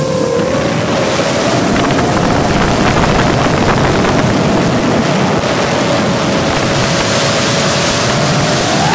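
Geprc Mark4 5-inch 6S FPV quadcopter's brushless motors and propellers whining steadily in flight, heard through its onboard camera, under heavy wind and prop-wash rush on the microphone. The whine holds a fairly level pitch with small wavers, then rises near the end as the throttle comes up.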